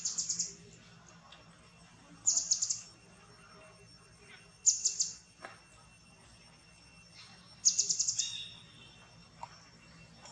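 A bird calling in four short bursts of rapid, high trilled notes, roughly every two to three seconds.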